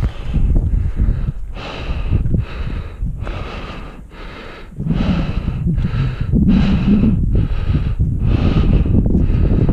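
A hiker breathing hard from the exertion of climbing steep granite, quick heavy breaths about one every two-thirds of a second, with wind rumbling on the microphone.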